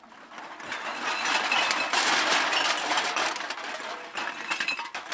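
A bag of cans dumped out: a dense clatter of cans tumbling and knocking together. It swells to its loudest in the middle and thins to scattered clinks near the end.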